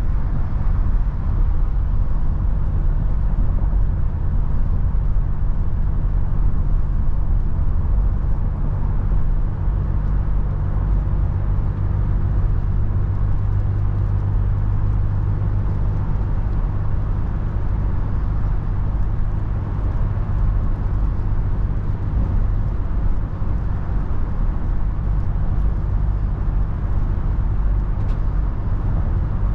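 Toyota FJ Cruiser's 4.0-litre V6 and tyres giving a steady low drone while driving on a windy road, with a rushing haze of wind and road noise over it.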